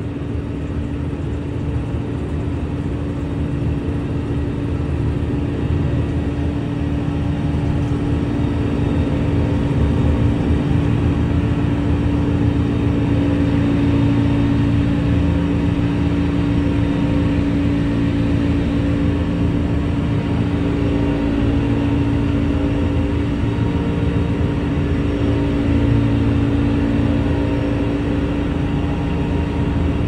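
Ship's deck crane machinery running steadily while it lowers a suspended wheel loader, a constant mechanical drone with a steady hum. It grows a little louder around eight seconds in, then holds.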